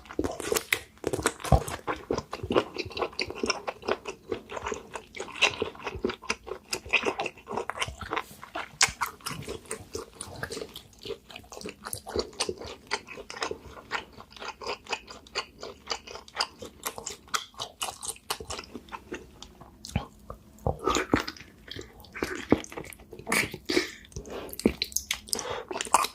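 Close-miked eating sounds: rapid, wet chewing and crunchy bites of spicy seafood, going on steadily with a short pause about two-thirds of the way through.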